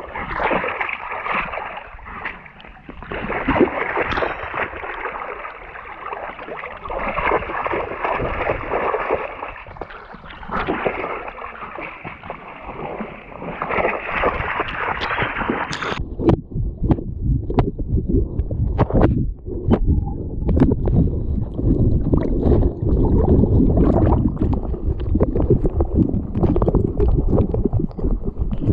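River water splashing and gurgling close by, with no voice over it. About sixteen seconds in the sound turns abruptly duller and lower, with scattered clicks and knocks.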